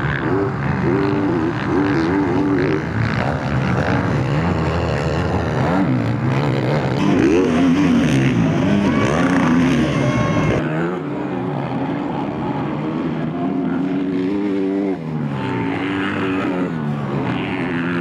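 Motocross bike engines revving hard on a dirt race track, pitch climbing and dropping again and again with throttle and gear changes. The sound changes character at a cut about ten seconds in.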